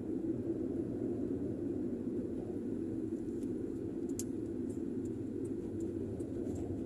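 Steady in-cabin drone of a car driving along a road: tyre and engine noise heard from inside, with faint light ticks starting about three seconds in.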